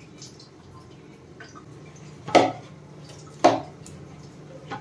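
Metal cookware clanking twice on a gas stove, about a second apart, each with a short ring, over a faint steady low hum.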